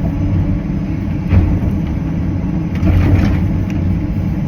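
Cat 325CL excavator's diesel engine running steadily under work. A few short knocks sound over it, once about a second and a half in and again around three seconds in.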